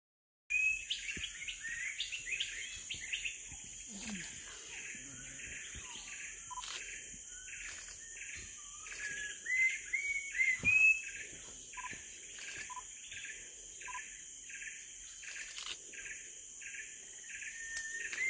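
Tropical rainforest ambience: birds chirping again and again, loudest about ten seconds in, over a steady high-pitched insect drone.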